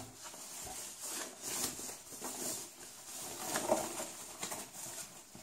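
Faint, irregular rustling, rubbing and light knocks of packaging being handled as a boxed speaker is lifted out of its box.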